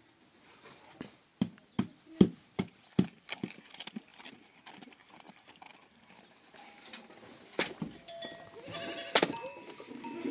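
A series of sharp knocks or clinks in the first few seconds, then bleating from a flock of goats and sheep near the end.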